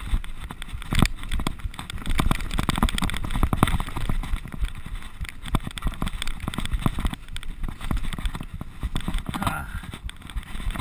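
Mountain bike descending rough, muddy singletrack at speed: a continuous irregular clatter of knocks and rattles as the bike hits roots and bumps, over a steady low rumble.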